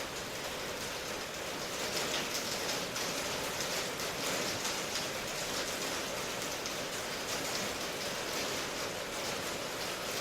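Steady rain falling, a dense even hiss with fine patter of drops on surfaces.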